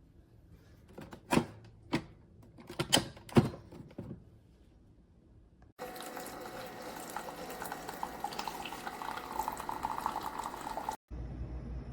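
Keurig K-Mini single-serve coffee maker: a few sharp plastic clicks, then about a second and a half later a steady hum of the machine brewing, with water pouring into the cup. The hum stops abruptly near the end.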